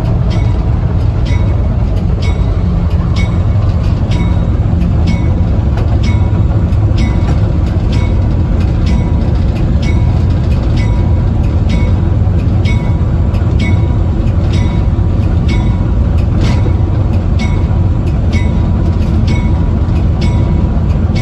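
L&PS Railway car 14 running along the track: a steady low rumble with the wheels clicking over rail joints about twice a second.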